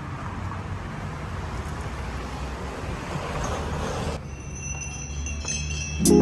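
Outdoor street ambience: a steady hiss and low rumble of road traffic. Background music with marimba-like mallet notes comes in loudly just before the end.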